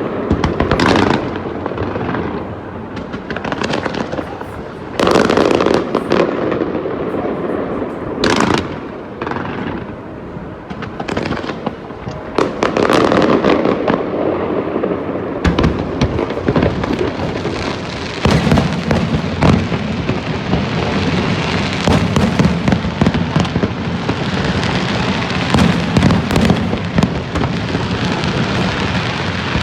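Aerial fireworks display: a continuous run of booming shell bursts and crackling, growing denser to a near-constant rapid crackle in the last third.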